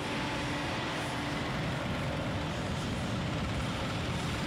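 Steady mechanical din of heavy construction equipment running, with a low engine hum and a faint steady tone that drops out about halfway through.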